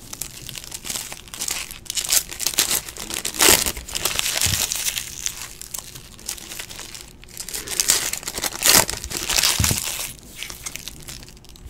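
Foil wrappers of Panini Playoff football card packs crinkling and tearing as they are ripped open by hand, in irregular bursts.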